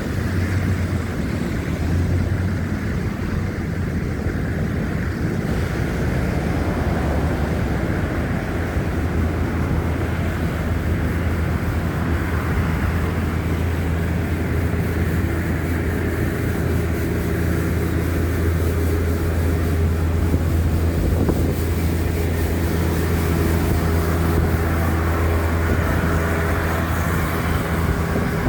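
Steady low rumble of city traffic, with wind buffeting the phone's microphone.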